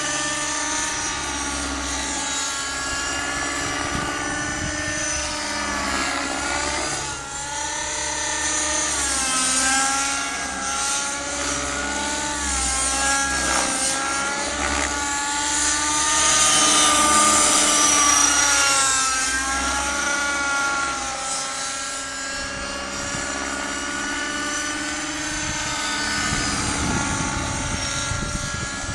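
Align T-Rex 600 nitro RC helicopter in flight, its glow engine and rotor blades running with the pitch rising and falling again and again as it manoeuvres. It is loudest a little past halfway.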